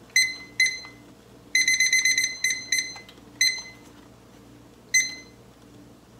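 Digital kitchen timer beeping as its buttons are pressed to set a ten-minute countdown: two single beeps, then a quick run of about eight beeps, then four more single beeps spaced out, the last about five seconds in.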